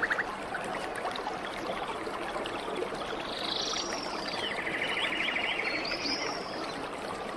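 A bird singing over a steady rushing background noise: about three seconds in comes a phrase of high arched notes followed by a fast, even trill lasting about two seconds.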